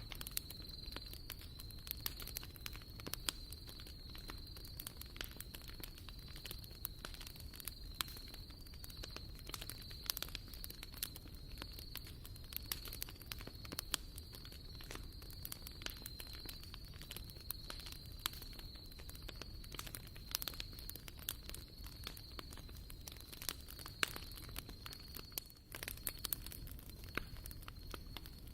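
Wood campfire crackling and popping: irregular sharp snaps of varying loudness over a low, steady rumble, with a thin high-pitched tone running underneath.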